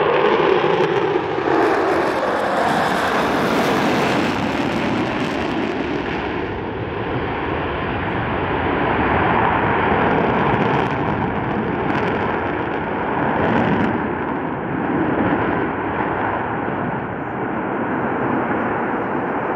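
Jet engines of four F/A-18 Super Hornets flying past together: a loud, steady roar that slowly swells and fades, with a falling pitch over the first couple of seconds.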